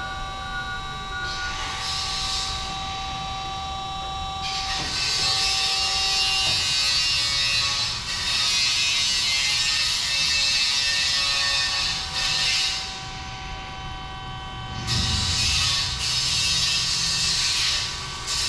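Peerless VB-1820XL vertical band saw running, with a steady whine. Louder hissing passages lasting several seconds come and go over it.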